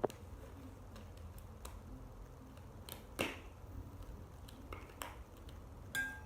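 Small objects being handled and set down while nursing equipment is prepared: scattered clicks and knocks, the loudest about three seconds in, and a short ringing tap near the end.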